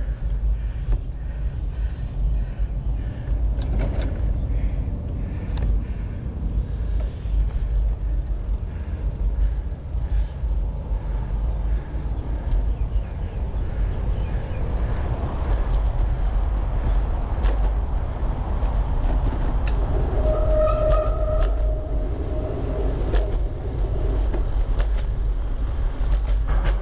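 Wind buffeting the camera microphone of a moving bicycle, a constant low rumble, with a clicking creak from the bike repeating over the first several seconds. A brief steady tone sounds about two-thirds of the way through.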